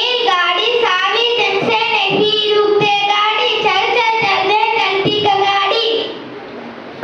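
A child singing a melody with long held notes; the singing stops about six seconds in.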